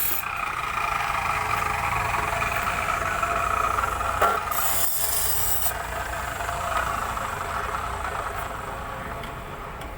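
An electric hand tool running with a steady rasping, worked against a truck body in repair, with a sharp knock about four seconds in.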